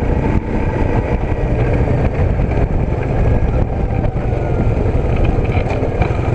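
An ATV engine running under way: a loud, steady rumble.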